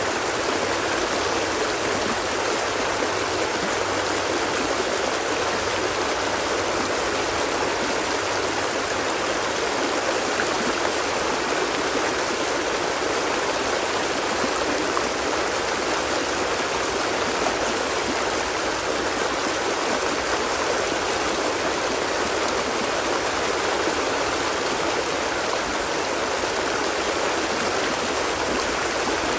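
Flowing water, a steady even sound that does not change or break.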